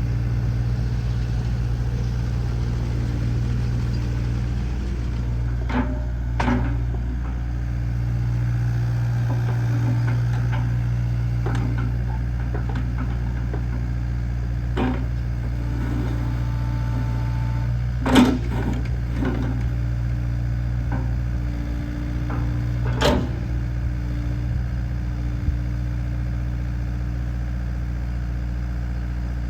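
Kubota KX057-4 mini excavator's diesel engine running steadily, with a few sharp clanks and knocks over it; the loudest comes about two-thirds of the way through.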